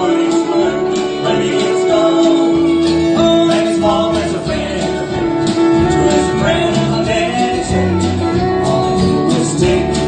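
Country band music, guitar among the instruments, with a long held note running underneath: an instrumental passage between sung verses.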